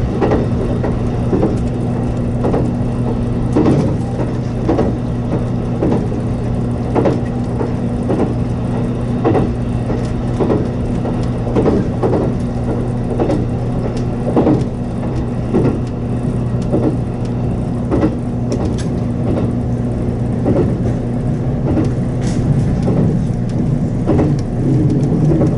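A JR Kyushu 783 series electric limited express running at speed, heard from inside the front car: a steady hum under the running rumble, with short clacks of the wheels over rail joints about once a second. The rumble grows a little louder near the end.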